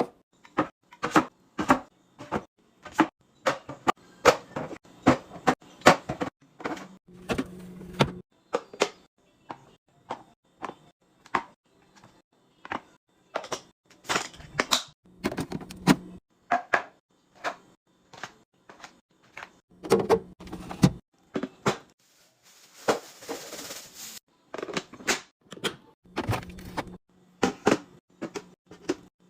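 Rapid clicks, taps and knocks of containers and packages being handled and set down while a fridge is restocked, with a short rushing hiss about two-thirds of the way through and a low hum in a few stretches.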